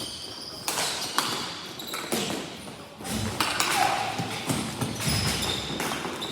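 Ball hockey play in a large echoing rink: sticks and the ball knocking, with several sharp clacks and thuds spread through the stretch.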